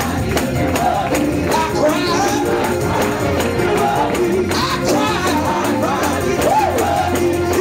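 Live gospel church music in the Pentecostal 'shout' style: voices singing over the band with a driving percussion beat and heavy bass.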